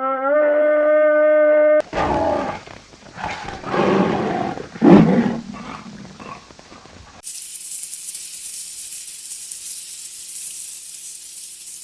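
Sound-effect clips cut one after another: a steady animal call ends about two seconds in, then a big cat's rough growling roars run for several seconds, then a steady high hiss.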